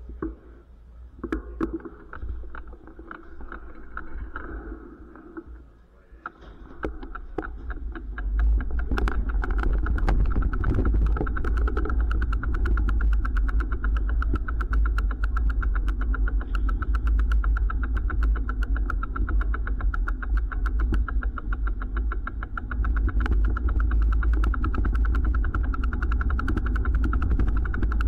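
Bicycle being wheeled along, its freewheel ticking rapidly and evenly over a steady low rumble that grows loud about eight seconds in; quieter, with scattered clicks, before that.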